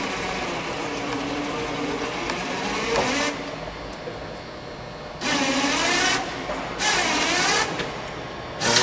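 Electric drive motor of an aircraft tow tractor whining as it works a plane's nose wheel onto its cradle, the pitch wavering as it runs. It runs for about three seconds, drops away, then comes back in three short bursts.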